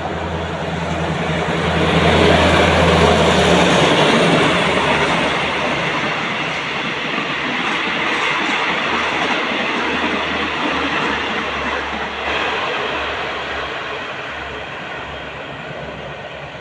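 A diesel-hauled passenger train of the State Railway of Thailand running past. The locomotive's engine drone is loudest about two to four seconds in, then the carriages roll by with a rumbling clatter that slowly fades.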